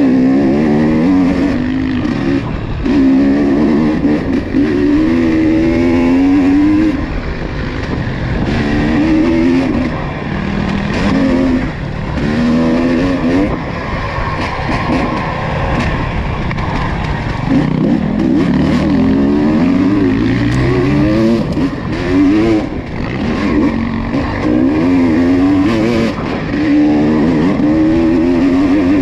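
ATV engine running under throttle, revving up and falling back over and over, its pitch rising and dropping every second or two.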